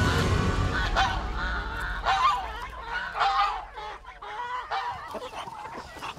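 Domestic geese honking in a string of short calls, about eight of them, mixed with the flock's other fowl noises.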